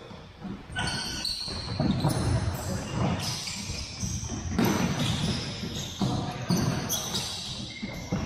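Indoor soccer in a gym: a ball being kicked and bouncing on the hardwood floor in a string of sharp thuds, with sneakers squeaking in short high-pitched chirps, all echoing in the large hall.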